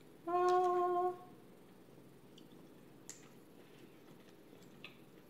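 A woman's short closed-mouth hum, one steady note held for about a second, then a few faint clicks from a snow crab leg shell being picked apart by hand.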